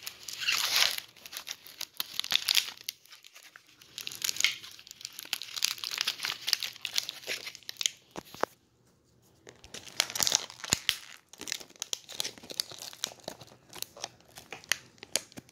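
Tape being peeled and torn off small cardboard toy boxes, with packaging crinkling and a few sharp clicks, and a brief pause about halfway through.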